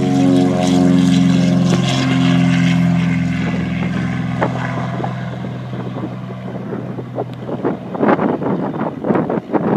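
Propeller airplane engines running with a steady droning hum that slowly falls in pitch and fades as the plane moves away down the runway. Near the end, wind buffets the microphone in gusts.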